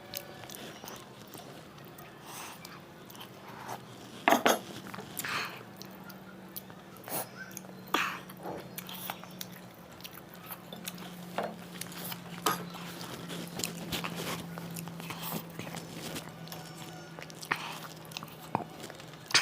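Close-up eating sounds of chewing and mouth smacks while eating rice with curry, with scattered sharp clicks, the loudest about four seconds in. A faint low steady hum runs underneath from about six seconds on.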